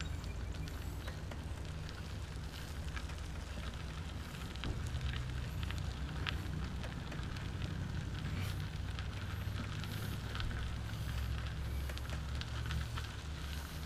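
Trike rolling along a gravel trail: a steady low rumble with a fine, continuous crackle of tyres on grit.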